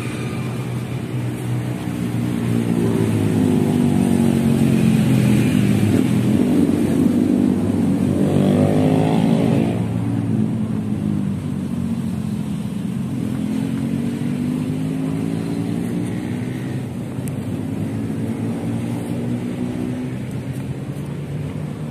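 An engine with a clear pitch passing by: it swells over the first few seconds, is loudest around the middle, then slowly fades away.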